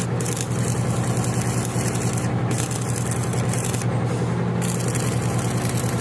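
Electric arc welding: a steady machine hum under the hissing crackle of the arc, which breaks off twice for a moment.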